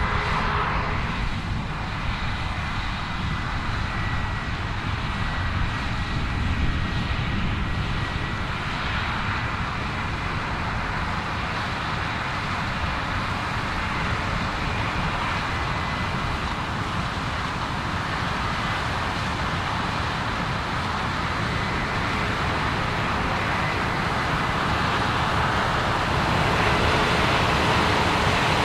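Case IH 9260 Axial-Flow combine harvester running steadily under load while harvesting canola: a continuous engine and threshing drone with a faint high whine, rising slightly near the end.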